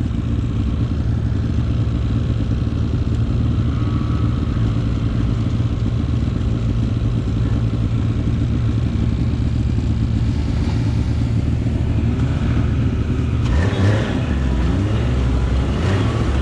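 Snowmobile engine running steadily at riding speed. About three-quarters of the way through, its note drops lower and shifts, with a few short rising glides.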